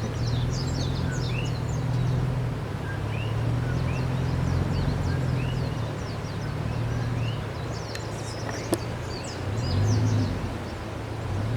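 A vehicle engine running with a steady low rumble, under many short, high chirping calls from animals outside. A single sharp click comes about nine seconds in.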